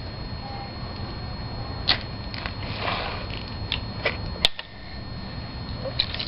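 Bicycle pump being handled and worked at the tyre valve to inflate a newly fitted inner tube: a few irregular clicks and taps, the sharpest about four and a half seconds in, over a steady low hum.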